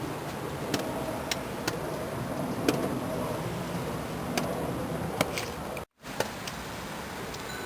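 Steady wash of road traffic noise with scattered sharp ticks. It cuts out completely for a moment about six seconds in and returns quieter.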